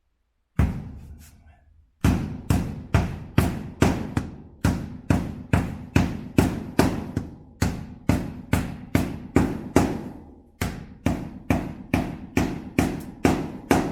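Hammer driving nails into a wall sheet: a steady run of sharp blows about three a second, with a short break twice.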